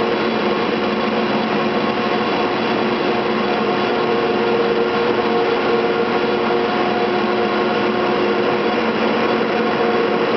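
Electrically driven cable-winding machinery of a cable car powerhouse running: drive units and large grooved sheaves turning the haul cables, a steady mechanical whirring hum with a few constant held tones.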